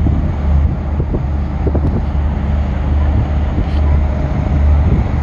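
Low, steady diesel drone of a passing container ship and its escort tugboat, with wind on the microphone.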